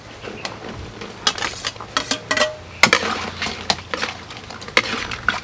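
Metal spatula scraping and clinking against a metal plate and a wok as corn kernels are pushed into the pan: a run of sharp, irregular clinks.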